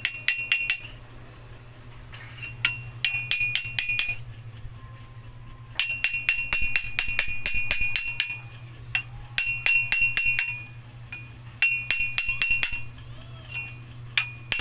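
Steady low motor hum from a Juki sewing machine, overlaid by repeated short bursts of rapid metallic clicking with a bright ringing tone, about five bursts of a second or two each.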